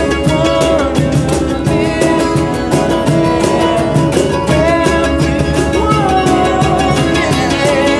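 Acoustic string band playing a song with a steady beat: strummed acoustic guitar, fiddle, mandolin and upright bass, with hand percussion on a suitcase and a man singing.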